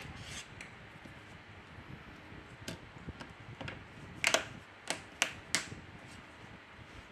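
Plastic middle frame of a Huawei Ascend Y530 being pressed onto the phone, clicking into place. A few faint clicks, then four sharp snaps in quick succession past the middle.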